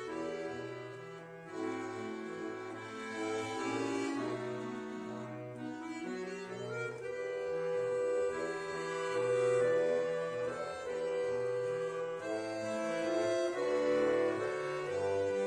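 Bayan (chromatic button accordion) played solo: held melody notes over bass notes that change every half second or so.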